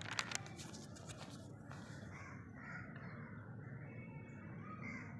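Paper pages rustling and flapping as a book's pages are turned, in the first half second. Then faint outdoor background with distant birds calling.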